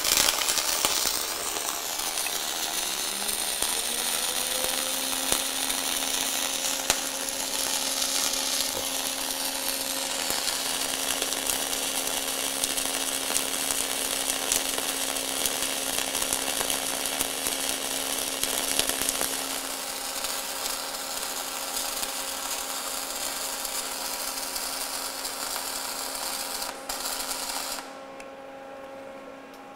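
Wire-feed welding arc crackling and hissing steadily as a stringer bead is laid, struck sharply at the start and cut off abruptly near the end. Beneath it the manipulator's travel drive motor hums, rising in pitch over the first few seconds, then running steady and still humming after the arc stops.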